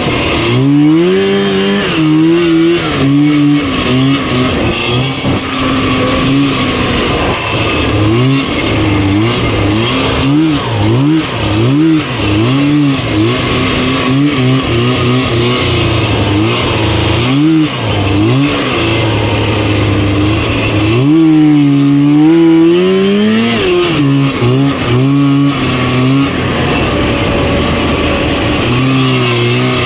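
Rotax 503 two-stroke twin engine of a Lynx snowmobile running hard, its revs rising and falling again and again with quick throttle bursts. About two-thirds of the way through it makes one longer climb in revs, then settles to steadier running near the end.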